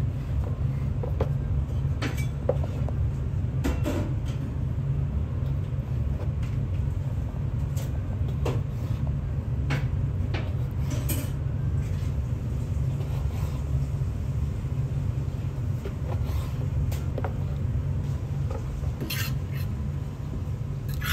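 Long slicing knife cutting grilled beef and pepper on a wooden cutting board, scattered knocks of the blade on the board, then a metal spoon clinking and scraping in a ceramic bowl near the end. A steady low hum runs underneath.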